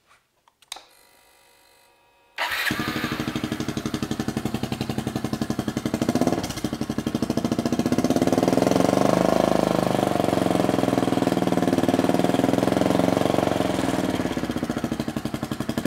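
Honda CT110 Postie Bike's small single-cylinder four-stroke engine starting about two and a half seconds in and then running at a steady idle.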